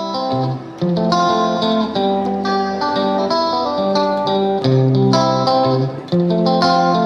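Background music led by plucked guitar, with a steady succession of picked notes and chords.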